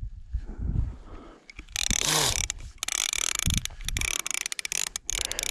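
Fishing reel being cranked to wind in a bottom line: a fast ratcheting whir that starts about a second and a half in and stutters in short bursts near the end.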